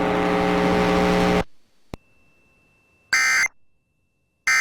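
A steady low buzz that cuts off about a second and a half in, followed by a click. About three seconds in comes a short, harsh burst of EAS end-of-message data tones, the SAME digital code that closes an emergency alert, and the next burst of the sequence begins just at the end.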